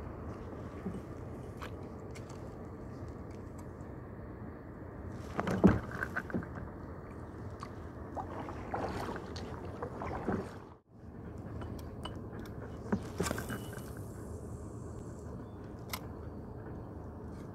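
Fishing kayak on the water: a steady low rush of wind and water noise, broken by scattered knocks and clicks from handling aboard. The loudest knocks cluster about five to six seconds in, and the sound drops out for a moment just before the middle.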